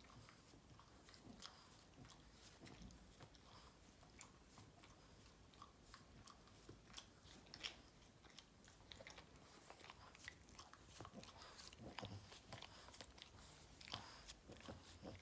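Boston terrier licking a hand: a quiet, irregular run of wet tongue and mouth clicks and smacks, busier in the second half.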